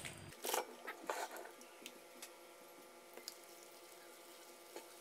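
A dry instant-noodle block and its plastic packet rustle and click as the block is set into a bowl. This is followed by faint water trickling from a jug onto the dry noodles.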